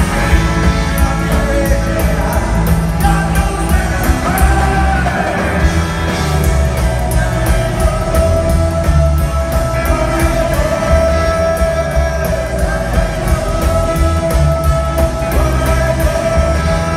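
Live rockabilly big band playing: a male lead singer with hollow-body electric guitar, drums, and a horn section. A long note is held from about a third of the way in.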